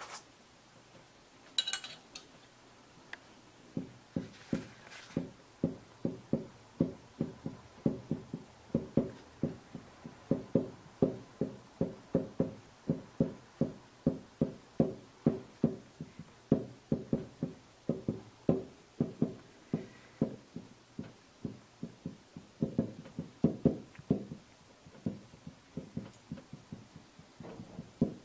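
Heated nakwha iron dabbed again and again onto hanji paper, each touch scorching a short brown mark. The taps are soft and even, about two to three a second, starting a few seconds in.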